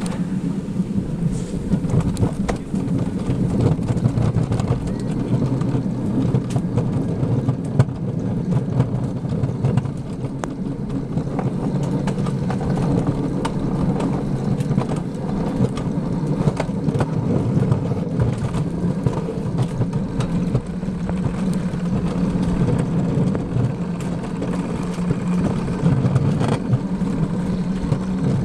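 Alpine coaster bob running fast down its tubular steel rails: a steady, loud rumble from the wheels, with many small rattling clicks.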